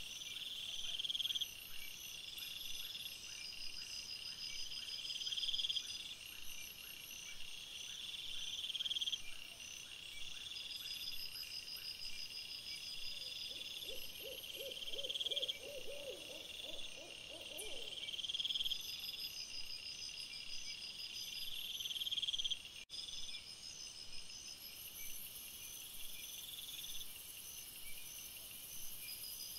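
Night insects chirping in a steady chorus of repeated high trills, with a short run of rapid, lower pulses about halfway through.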